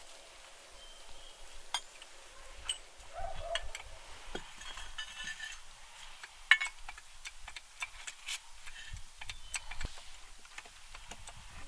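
Irregular metal clicks and clanks from a steel handle being worked in a jack under a house sill, jacking up a sunken corner of the cabin, with one louder knock about halfway through.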